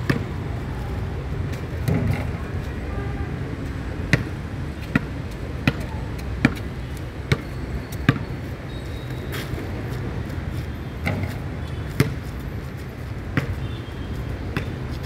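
Basketball bouncing on a hard outdoor court as a player dribbles: sharp single thuds, a steady run of about one bounce every 0.8 seconds through the middle, then a few scattered bounces near the end.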